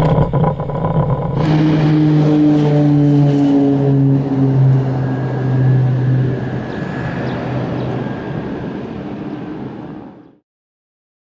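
Cessna Citation II business jet's twin Pratt & Whitney JT15D turbofans at power as the jet moves away: the engine tones slowly fall in pitch and the sound fades, then cuts off abruptly about ten seconds in.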